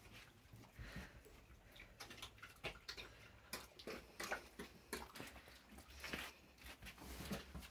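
A domestic pig nosing at a metal bowl of liquid feed on a concrete floor, making faint, irregular clicks and snuffles.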